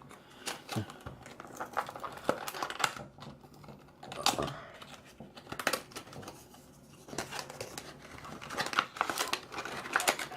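Packaging of a sealed trading card game box crinkling and tearing as it is opened by hand, in irregular crackles and rustles.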